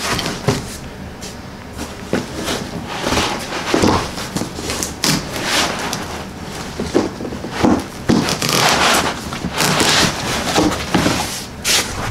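Foam packing and cardboard box being handled: irregular rustling, scraping and knocks as foam-packed parts are lifted out of a shipping box.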